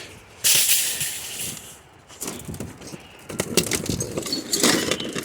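Junk being shifted and rummaged through in a dumpster. A sudden noisy rush of debris about half a second in fades over about a second, followed by scattered knocks and rustles.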